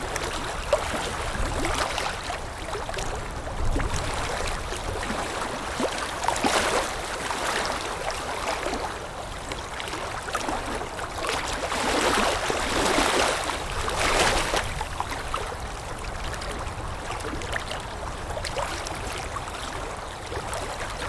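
Water lapping and splashing, with small waves slapping irregularly and swelling louder a few times, over a low wind rumble.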